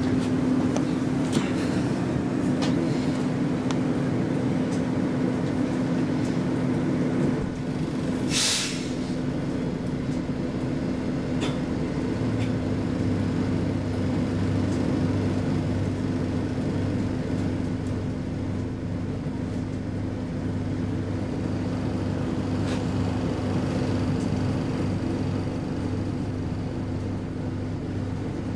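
Cabin noise of an SL X10p electric railcar slowing to a stop at a station, with a short, loud hiss of air about eight seconds in. After that the standing train gives a low, steady hum.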